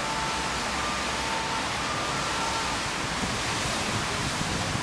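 Steady rush of a tall water jet gushing up from a burst water main in the street, heard from high above.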